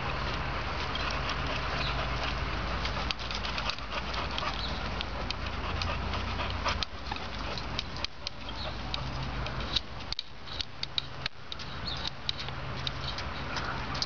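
Dogs at play, a Boxer puppy and a Schnauzer, making dog sounds with scattered short sharp taps, more of them in the second half, over a steady low rumble.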